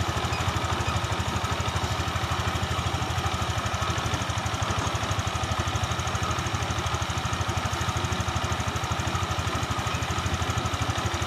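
Fuel-injected motorcycle engine idling steadily, with an even, rapid pulse.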